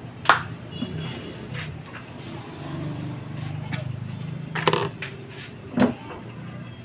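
Epson inkjet printer switched on for a power-on test: a low motor hum that swells for about two seconds in the middle, with a few sharp clicks, one near the start and two more later on.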